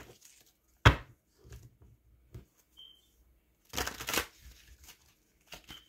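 Tarot cards being handled and shuffled: a sharp knock about a second in, then a longer rustling shuffle around four seconds in, with small clicks between.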